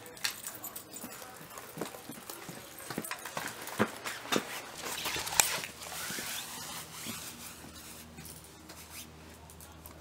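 Footsteps of a person in boots and a small dog on a concrete walk: a run of scuffs and clicks, loudest about five seconds in, then only a faint steady hum.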